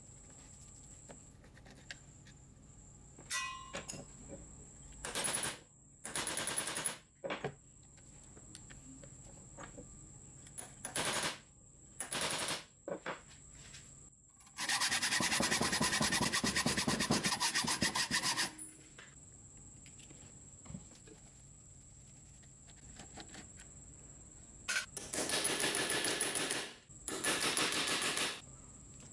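Hand tools working the rusty gear head of an old Hitachi G13S1 angle grinder: screws being turned out with a screwdriver and the gear housing cover being worked off, in several bursts of scraping, rasping metal-on-metal noise. The longest burst, about four seconds near the middle, has a fast rattling grind.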